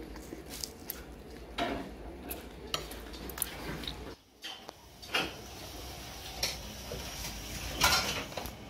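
Restaurant tableware clattering: dishes and cutlery clink and knock at irregular moments over a steady room background. There is a brief lull about four seconds in, and the loudest clatter comes near the end.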